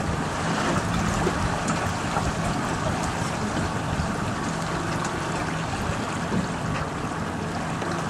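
A boat's motor running steadily at low speed, a low hum under the rush of water moving past the hull.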